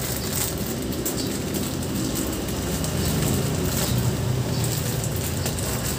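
Plastic mushroom fruiting bags crinkling as they are opened by hand, over a steady low rumble.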